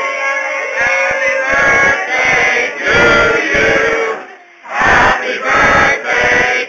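Crowd of party guests singing together in unison, men's voices loudest, with a short break about two-thirds of the way through before the voices come back loud.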